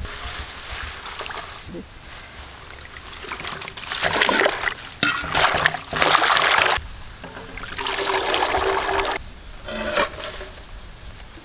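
Hands swishing and lifting a heap of leafy greens in a large steel basin of water: splashing and sloshing in several rounds, loudest from about four to seven seconds in, with short pauses between. The greens are being rinsed to wash off the soil.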